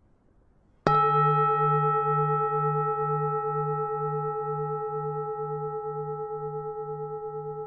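Vietnamese temple bell struck once about a second in, then ringing on with several steady tones that slowly fade, the low hum wavering in a slow pulse about twice a second.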